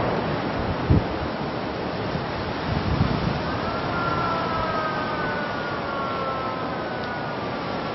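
Wind rushing over the microphone with a wash of harbour water noise, and dull wind buffets about one and three seconds in. From about three and a half seconds in, a faint siren-like wail glides slowly down in pitch for about four seconds.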